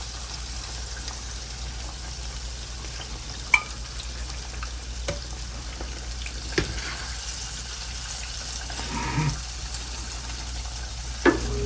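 Fish frying in hot grease: a steady sizzle, broken by a few sharp clicks.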